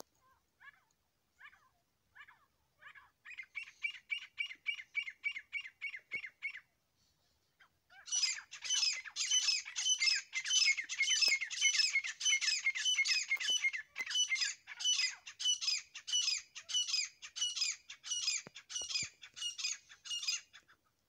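Grey francolin calling. A few soft notes build into a fast run of shrill repeated notes, then a short pause. A louder, longer run of repeated high phrases follows at about two a second.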